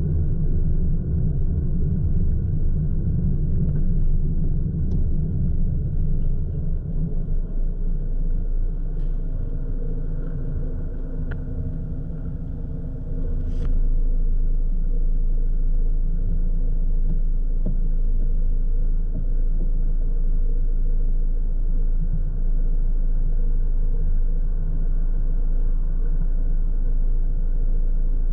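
Car cabin rumble from a dash camera: the car drives along a city street, slows to a stop, and then stands with its engine idling steadily at a red light. A single short click sounds about halfway through, just as the car comes to rest.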